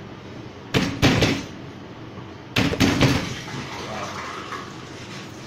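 Kitchen knife striking a cutting board while preparing garlic: four loud knocks in two pairs, the first pair under a second in and the second about two and a half seconds in.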